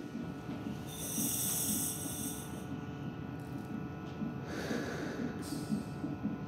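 Entonox (gas and air) drawn through a handheld mouthpiece. The demand valve hisses as she breathes in, loudly about a second in and more weakly again near the five-second mark. A low, fast, rhythmic whooshing pulse runs underneath.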